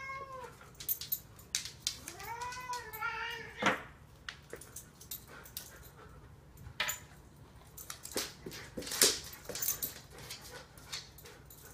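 Domestic cat meowing: the end of one meow right at the start, then one long, drawn-out meow about two seconds in. Scattered light clicks and taps follow, the loudest near the end.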